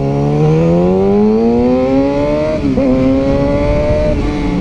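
Motorcycle engine accelerating, its pitch climbing steadily, dropping with a gear change a little past halfway, then climbing again before the throttle eases near the end.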